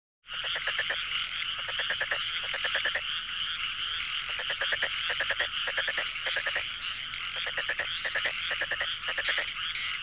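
A chorus of many frogs calling at once: a dense, steady trilling din overlaid with repeated short rising chirps and rapid pulsed croaks. It starts abruptly just after the beginning.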